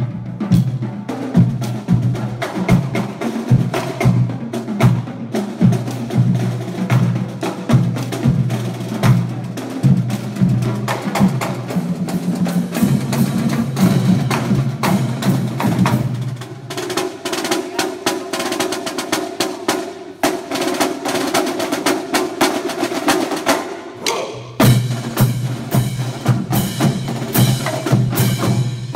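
Marching drumline of snare drums, tenor drums, bass drums and cymbals playing a fast rhythmic piece. About two-thirds of the way through the low drums drop out for a stretch of higher drum playing, then come back in near the end.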